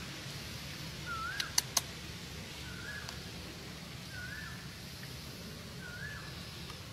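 A short, curling, whistle-like animal call repeats four times, about every second and a half. Three sharp clicks about a second and a half in are the loudest sounds, and a low steady hum runs underneath.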